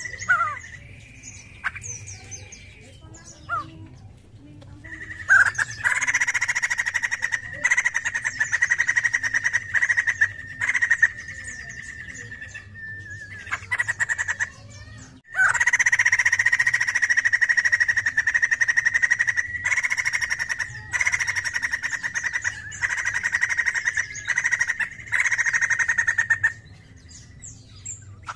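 Caged poksay jambul (crested laughingthrush) singing loudly. After a few scattered notes it launches into long chattering runs of rapid repeated notes, with a short break in the middle.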